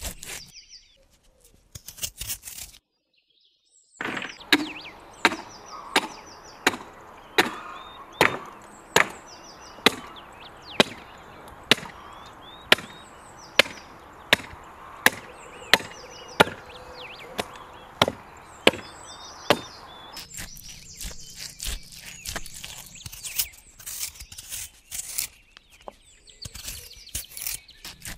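Hard, regular chopping into a lamb carcass, about twenty chops a little under a second apart, starting a few seconds in. Near the end the chopping gives way to softer, irregular knife cuts and scrapes, with birds chirping faintly.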